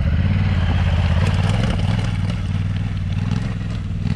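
Honda Africa Twin CRF1100L's parallel-twin engine running steadily as the motorcycle rides along a stony dirt track, easing off slightly near the end.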